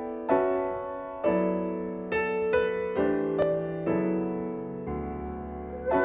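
Solo piano introduction to a contemporary art song: sustained chords struck about once a second, each ringing on and fading before the next.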